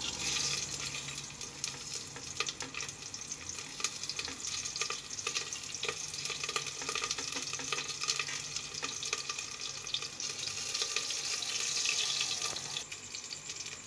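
Hot oil sizzling as green chillies and cumin seeds are dropped in for a tadka (tempering), in a pressure cooker with bay leaves. The sizzle starts suddenly and goes on with a steady fine crackle.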